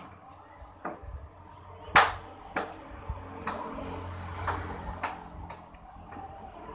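Tableware clinking and knocking: about six sharp clinks spread over a few seconds, the loudest about two seconds in.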